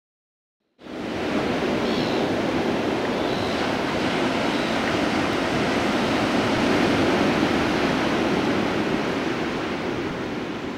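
Ocean surf and waves washing, a steady rushing noise that starts suddenly about a second in and fades out near the end.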